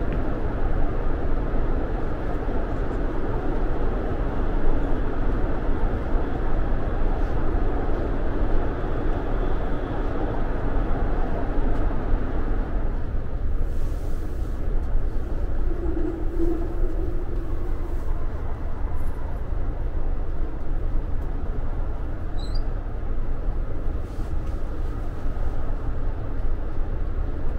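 AREX all-stop commuter train running, heard from inside a passenger car: a steady low rumble of wheels and motors. Its higher part eases about halfway through.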